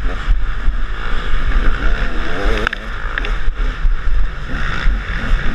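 KTM 300 two-stroke enduro motorcycle engine running at race pace, its pitch rising and falling as the throttle is worked, heard from a helmet camera with heavy wind rumble on the microphone. A few brief ticks about halfway through.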